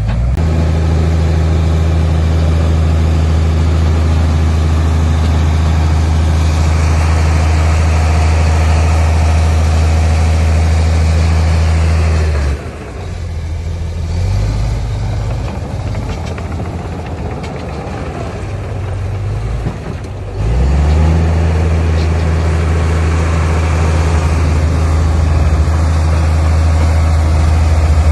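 Heavy earthmoving machine's diesel engine running at steady high revs. About twelve seconds in it drops off and runs unevenly at lower revs, then comes back up to steady high revs about twenty-one seconds in.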